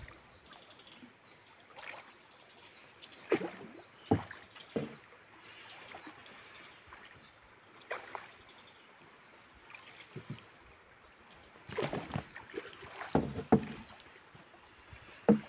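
Bamboo pole paddling a small boat: scattered splashes and knocks of the pole, a few seconds apart and bunched together near the end, with quiet between strokes.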